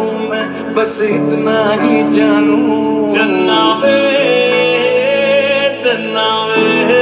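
Hindi romantic song with singing, played through a small portable Bluetooth speaker.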